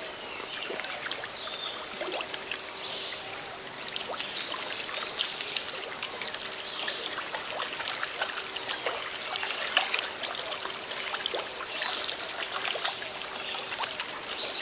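River water trickling and burbling steadily, with scattered small clicks and drips. A sharper crack stands out about two seconds in.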